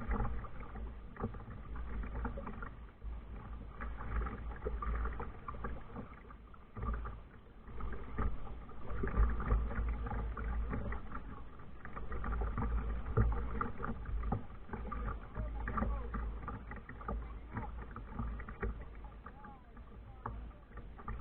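Kayak moving on water: irregular splashing and lapping of water at the hull, over a steady low rumble.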